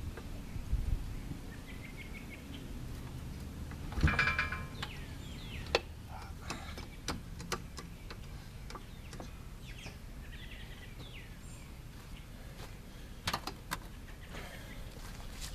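Birds chirping over an outdoor background, with scattered clicks and knocks as a scissor jack is cranked, and one louder ringing metal clank about four seconds in.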